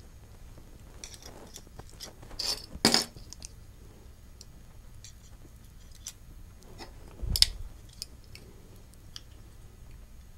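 Metal binder clips being pinched open and snapped onto the edges of a glass-topped plate stack: scattered small clicks and clacks of metal on glass. The loudest clacks come about three seconds in, and a sharp click with a low knock about seven seconds in.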